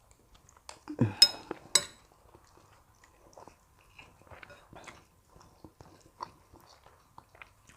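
Quiet eating of rice and stew: a spoon clinks against a plate twice about a second in, then faint chewing and small clicks of cutlery.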